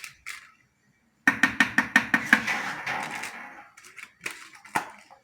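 A spoon knocking rapidly against a kitchen dish or jar: about eight quick, ringing clinks in just over a second, then a few scattered clinks and knocks.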